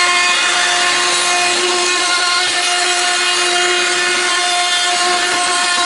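Makita hand router running at full speed with a 12 mm bit, milling a cutout in a wooden board guided by a copy ring along a template. Its steady high whine and the hiss of the bit chewing wood run without a break.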